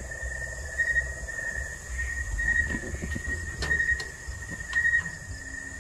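Night insects calling: a steady high-pitched chirring that pulses on and off, over a fainter, higher continuous buzz. Low handling rumble runs underneath, with a few light clicks as a hand touches a door frame.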